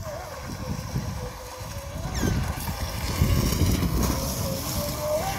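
RC speedboat's motor running at speed across the water, a thin wavering whine that rises briefly about two seconds in, with wind buffeting the microphone and loudest around the middle.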